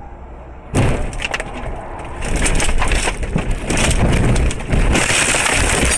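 Car crashing off the road into pine trees, heard from inside the car: a sudden loud impact about a second in, then continuous crashing, scraping and cracking of branches and wood.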